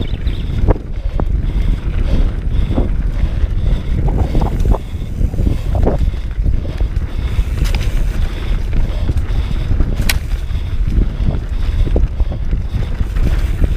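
Heavy wind rumble on the microphone of a mountain bike ridden fast downhill on a dirt trail, with scattered knocks and rattles from the bike over bumps, and one sharp click about ten seconds in.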